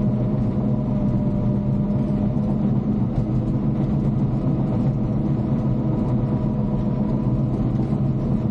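Caterpillar D5 bulldozer's diesel engine running at a steady speed, a constant low drone with no change in pitch.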